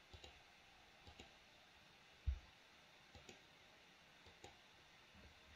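Faint computer mouse clicks in quick press-and-release pairs, about four pairs in all. A dull low thump a little over two seconds in is louder than the clicks.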